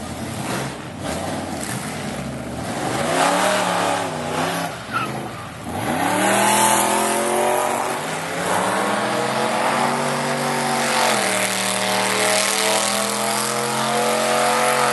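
Supercharged small-block Chevy V8 of a drag truck, revved up and down a few times, then held at high revs about six seconds in with the rear tyres spinning in a burnout. The engine note steps down slightly about eleven seconds in and keeps holding.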